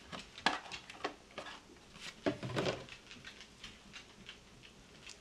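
Unpacking and handling noise: a plastic display cover and a plastic-wrapped fishfinder unit being lifted and set down in a cardboard box, giving scattered taps, clicks and rustles, with louder knocks about half a second in and a little after two seconds.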